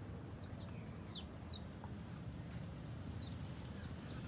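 Chickens giving short, high, falling chirps, several in quick succession about half a second in and again from about three seconds in, over a low steady rumble.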